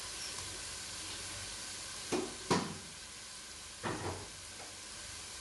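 Chicken and carrot pieces sizzling steadily as they fry in a pot. Three sharp knocks come about two seconds in, half a second later, and again near four seconds.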